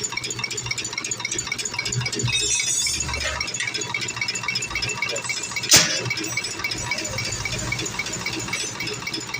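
Rapid, even mechanical ticking from a running machine, with a single sharp knock about six seconds in.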